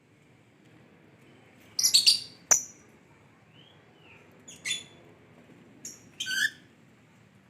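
Lovebird giving short, high-pitched chirps in a few separate bursts, the loudest about two seconds in, followed closely by a single sharp click.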